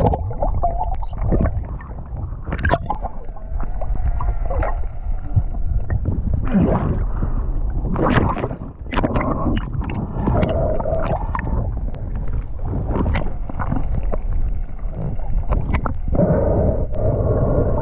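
Underwater sound picked up by an action camera in its waterproof housing: a constant low rumble of moving water with scattered clicks and knocks throughout.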